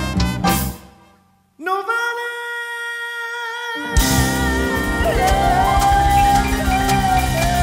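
Live Afro-Peruvian band music with a male lead singer. The band cuts out about a second in and one long note is held alone. Then the full band, with drum kit, crashes back in about four seconds in.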